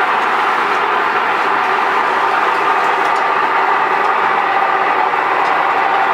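A machine running steadily, with a few faint knocks as wooden blocks are set onto a wooden cassava press.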